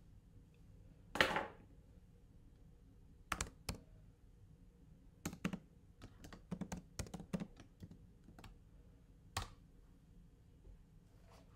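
Typing out a message: scattered sharp key taps, a couple at first and then a quick run of taps, with pauses in between. A short, loud noise about a second in is the loudest sound.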